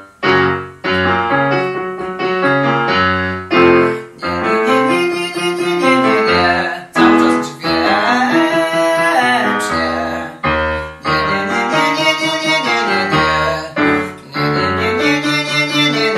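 Digital piano playing a vocal-exercise pattern of chords that change in short steps, with a man singing the exercise melody over it; around the middle his held notes waver with vibrato.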